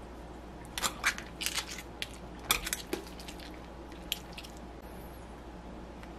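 Metal chopsticks picking through a plate of spicy braised seafood, clicking against clams in their shells, shrimp and the plate in a scattered run of sharp ticks that stops after about four and a half seconds. A faint steady room hum remains.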